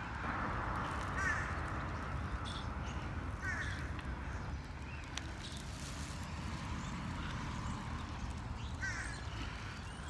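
Crows cawing: three short calls, about a second in, around three and a half seconds in, and near the end, over a steady low background rumble.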